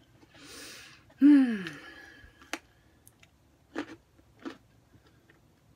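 A person eating: a soft airy intake of breath, then a loud voiced sigh that falls in pitch, followed by a few soft mouth clicks of chewing.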